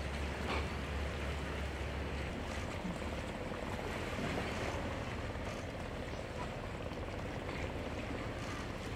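Steady outdoor wind and sea ambience, a hiss of wind on the microphone over open water, with a low rumble that stops about two seconds in.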